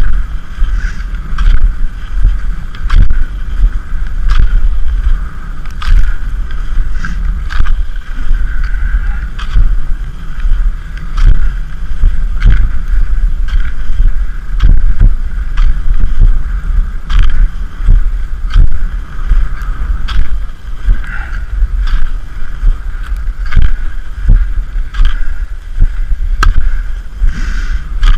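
Skate skis scraping and gliding on groomed snow, with sharp pole plants and pushes in an even rhythm of roughly one stroke a second, over a heavy low rumble of wind and motion on the microphone.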